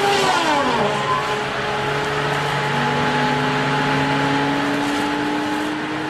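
Heavy tree-felling machine running: its engine pitch drops quickly in the first second, then climbs slowly and steadily as it works up again, over a constant low hum.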